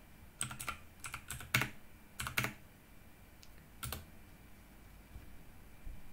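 Computer keyboard being typed: short, irregular key clicks, about half a dozen in the first two and a half seconds and a single one near four seconds in.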